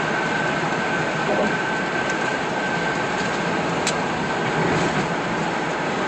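Steady road noise of a car travelling at freeway speed, heard inside the cabin: tyres and wind, with a faint steady whine and a light tick about four seconds in.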